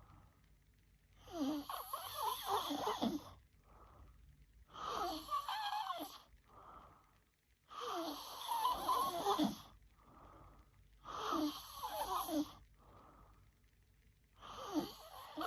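A young woman snoring in her sleep: about every three seconds a long snore of a second and a half or so, with a wavering pitch, each followed by a short, much softer breath.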